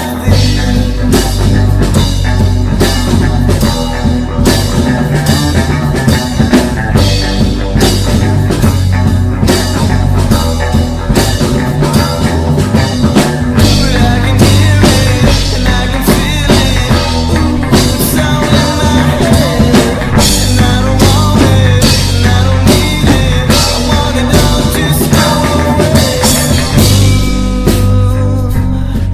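Loud rock music from a full band, with a drum kit keeping a steady beat over a heavy bass line.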